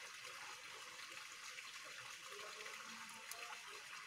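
Faint, steady trickling of water.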